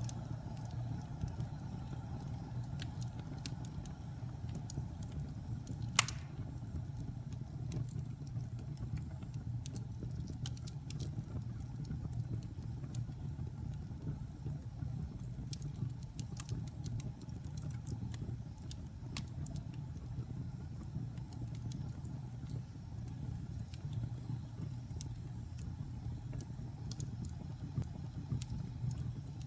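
Wood fire burning in a fireplace: a steady low rumble with scattered small crackles, and one sharp pop about six seconds in.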